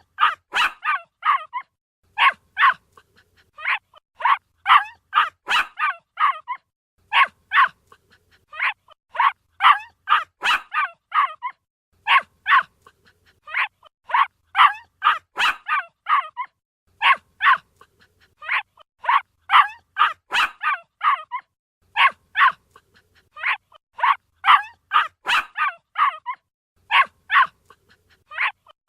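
A puppy barking in high, quick yips, in bursts of several barks with short pauses between them.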